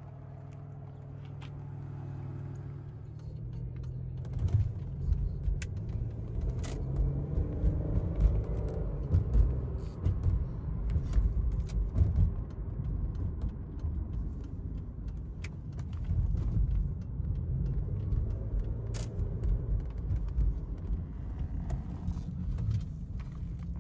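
Engine of a 2000 Pontiac Grand Prix GTP, its supercharged 3.8-litre V6, running steadily at first. The car then drives off, and the engine and road rumble are heard from inside the cabin as it accelerates. Scattered light clicks and rattles come through.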